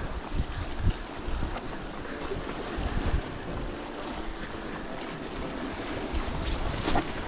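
Sea surf washing against the rocks at the foot of a cliff, with wind buffeting the microphone and a few knocks about a second in, near three seconds and near the end.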